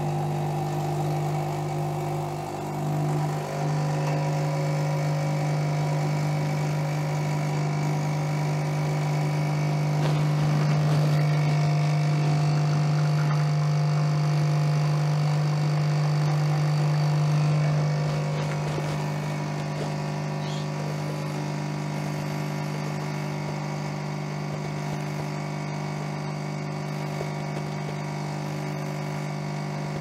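Espresso machine pump running steadily while a shot is pulled, a low hum with higher overtones. It dips briefly about three seconds in and is a little louder from about ten to eighteen seconds in.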